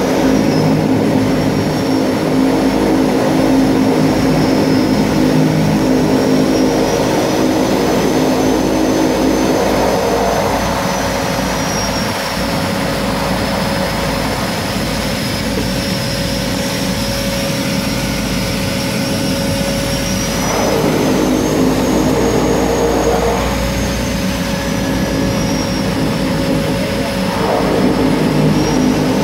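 Seaplane engine and propeller heard from inside the cabin as the aircraft runs on the water: a steady drone with a high whine that drifts up and down in pitch. The engine note eases about ten seconds in and picks up again twice in the last third.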